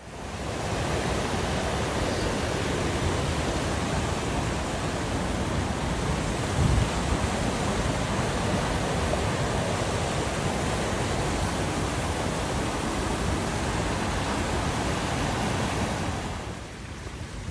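Steady rushing hiss of rain falling, with a single low thump about seven seconds in; the rushing eases off near the end.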